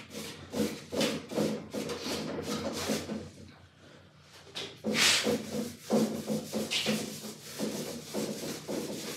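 A foam brush rubbing back and forth across a bare wooden board, spreading a coat of water-based polycrylic, with a soft swish on each stroke, two or three a second. The strokes pause for about a second before the middle, then one louder stroke comes about five seconds in and the brushing goes on.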